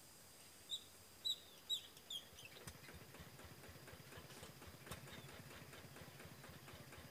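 A bird gives four short, falling calls in quick succession. About two and a half seconds in, a faint, fast, even knocking rhythm sets in and keeps going.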